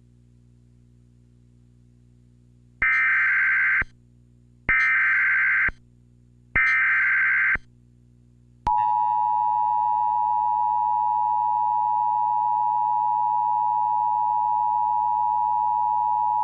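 Emergency Alert System SAME header: three one-second bursts of data tones, about a second apart. About eight and a half seconds in, the steady two-tone EAS attention signal starts and holds. A low steady hum lies underneath.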